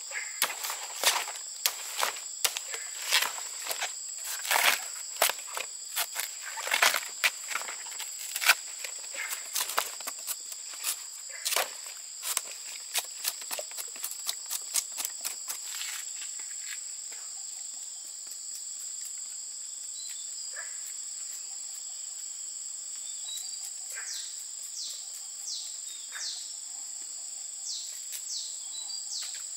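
Insects droning steadily at a high pitch. Through the first half come frequent sharp knocks and snaps, several a second, which thin to a few isolated ones about halfway through.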